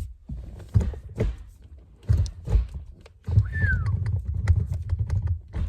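Manual shift lever on a newly fitted Steeda short-throw shifter being moved through the gates, giving a run of separate knocks and clunks. About three seconds in, a denser low rumbling of handling and clunks sets in, with one short falling squeak.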